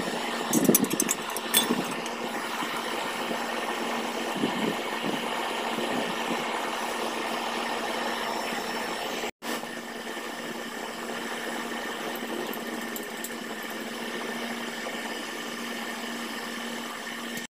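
A steady motor-like hum with a rushing noise under it, and a few sharp crackles from the wood fire in the first two seconds. The sound breaks off for an instant just past halfway.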